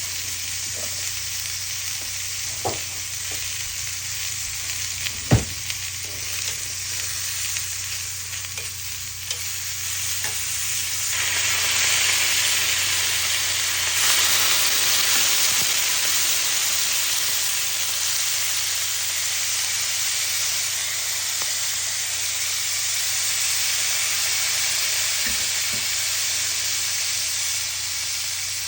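Salmon sizzling in butter on a hot grill, a steady crackling hiss that swells louder about eleven seconds in and again a few seconds later. A few sharp clicks come in the first few seconds, the loudest about five seconds in.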